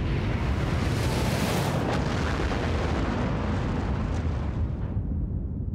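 Asteroid impact sound effect: a long, loud explosion rumble with a rushing hiss over it. The hiss dies away about five seconds in and the deep rumble carries on.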